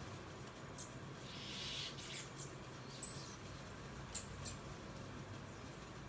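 Bananaquits giving short, very high, squeaky chirps, scattered and irregular, with two sharper ones about a second apart midway.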